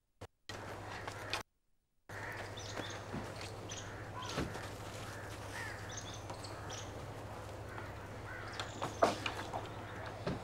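Rural outdoor birdsong: crows cawing and smaller birds chirping among trees over a steady low hum. The sound drops out to silence twice in the first two seconds.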